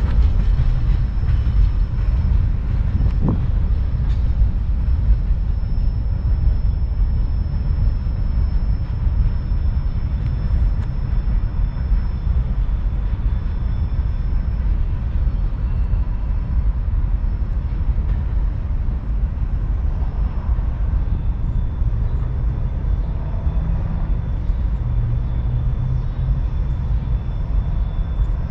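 Norfolk Southern manifest freight train's cars rolling past: a steady, heavy low rumble, with faint thin high tones coming and going.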